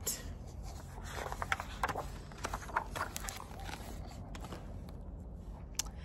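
Pages of a hardcover picture book being turned and the book handled: soft paper rustling with scattered light taps and scrapes over a low steady hum.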